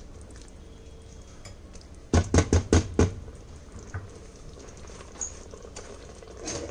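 A spoon knocking against the rim of the pressure cooker's inner pot after mixing the curry: about five quick knocks two seconds in, then one fainter knock.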